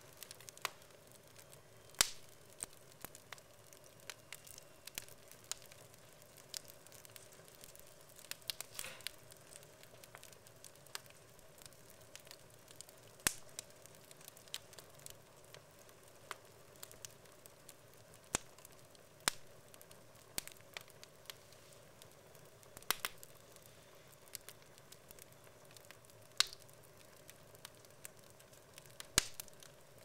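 Wood logs burning in a fireplace, crackling with irregular sharp pops, a handful of them much louder than the rest, over a faint steady hum.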